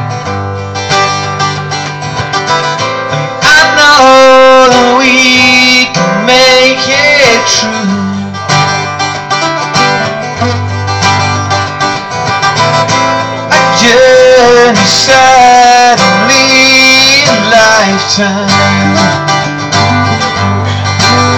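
Live acoustic duo: two acoustic guitars strumming chords, with long, wavering held vocal notes twice, about four seconds in and again around fourteen seconds, recorded on a phone.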